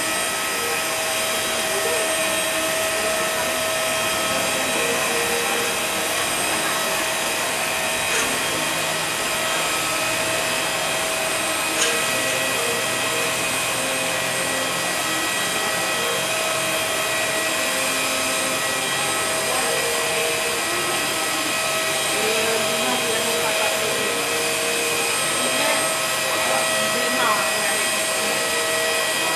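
Steady rushing noise with a high, unchanging whine from a parked jet airliner's turbine on the apron, with a couple of brief knocks partway through.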